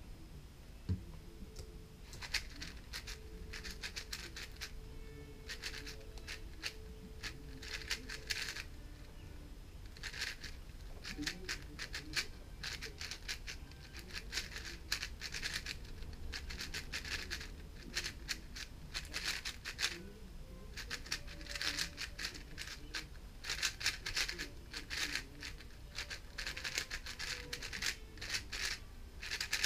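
GAN 460 M 4x4 speed cube being turned fast in a solve: quick runs of plastic clicking and clacking broken by short pauses. A single knock comes about a second in.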